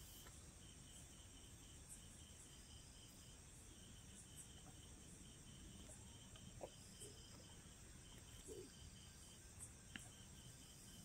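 Near silence: faint insect chirping in short, evenly repeated pulses, with a few soft clicks.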